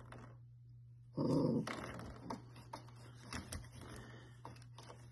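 Golden retriever puppy giving one short, loud bark about a second in while playing with a coil-spring doorstop, followed by light knocks and clicks.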